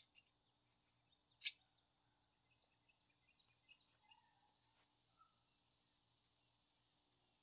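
Near silence with a few faint, light clicks and taps, one sharper click about a second and a half in.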